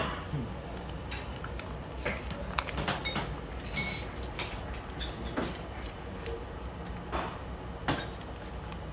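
Kitchen clatter over a low steady hum: scattered short knocks and clicks, with one ringing metallic clink about four seconds in.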